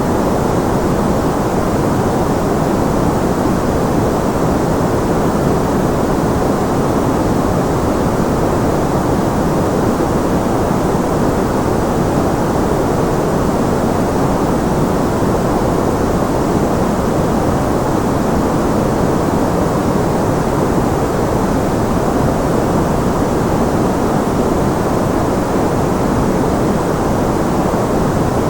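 Steady white noise for tinnitus masking: a continuous, unchanging hiss, fuller in the low and middle range than in the treble.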